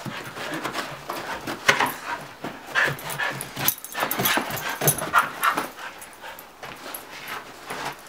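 Border collie making short, excited whines and yips close to the microphone, among scattered rustles and clicks.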